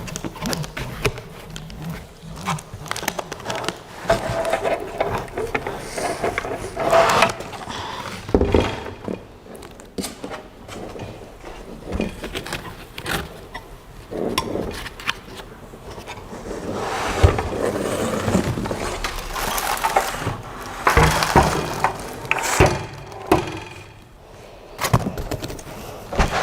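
Irregular knocks, clicks and scraping rubs of parts being worked out of tightly fitted packaging during an unboxing. There are denser stretches of scraping around 7 s, around 15 s and from about 17 to 23 s in.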